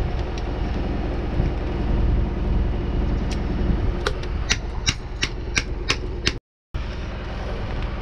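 Hand tools working on a boat engine's wiring and linkages: a run of about eight sharp clicks, roughly three a second, about four seconds in, over a steady low rumble. The sound cuts out for a moment near the end.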